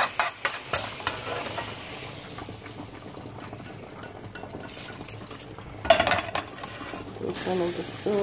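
Metal spoon scraping and stirring caramelized sugar syrup in a hot pan, with a steady sizzle. The syrup is then poured into a pot of boiling water. A short louder clatter comes about six seconds in.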